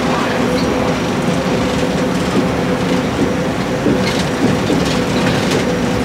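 Running noise inside a moving MIA Mover car, an automated rubber-tyred people mover, with a steady two-pitch hum and scattered light clicks and rattles.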